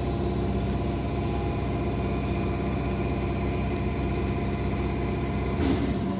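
Trolleybus heard from inside the passenger cabin: a steady machine hum over a low rumble. A sudden loud hiss starts near the end.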